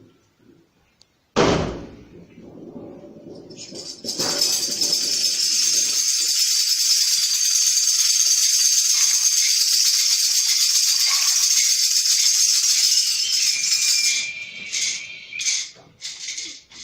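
A sheet of brass struck once for thunder: a sudden loud crash with a low rumble fading over the next few seconds. Then tambourines shaken continuously imitate rain, a steady high jingling rattle for about ten seconds that breaks into short separate shakes near the end.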